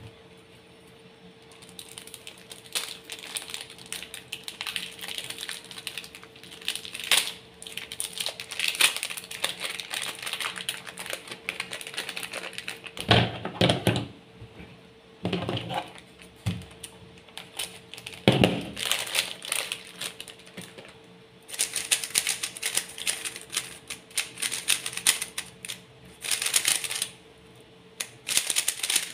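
MoYu Super RS3M 3x3 speedcube with ball core and maglev being turned by hand: quick runs of plastic clicking and clacking from its layers, in bursts with short pauses. A few heavier handling knocks come near the middle, while the cube is in its clear plastic wrapper.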